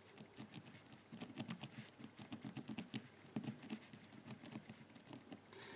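Faint, irregular clicking of a four-wheel combination padlock's number wheels being turned by hand, stepping through their detents while the lock is felt for play and binding.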